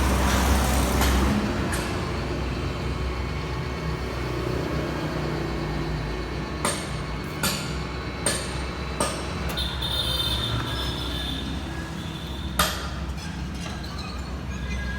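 Okuma radial drilling machine running with a steady low hum, with four sharp clicks in quick succession around the middle, a brief higher whine, and one louder click near the end.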